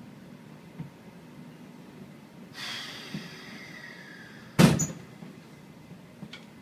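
Train's pneumatic sliding door closing: a hiss of air with a faint falling whistle, then, about two seconds later, one loud bang as the door shuts.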